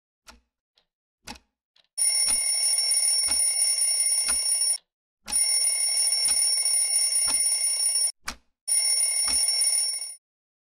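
Basketball-shaped quartz alarm clock ticking once a second while its alarm rings in three long bursts. The alarm is cut off in the third burst as a hand reaches down and switches it off.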